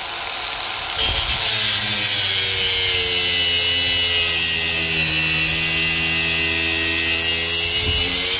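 Ryobi angle grinder running under load as it grinds the rubber out of an old sway bar bush, burning the rubber. Its motor note sags as it bites and climbs again near the end.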